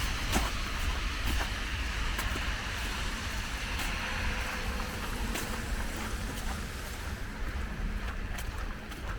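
Wet street in the rain: tyre hiss of passing traffic on a wet road, slowly fading, over a steady low wind rumble on the microphone, with scattered light ticks.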